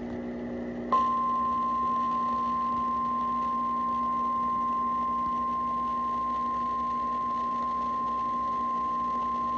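Emergency Alert System warning alarm tone, a single steady tone of about 1050 Hz heard over radio. It starts about a second in and holds without change over a faint low hum, and it signals an incoming National Weather Service severe thunderstorm warning.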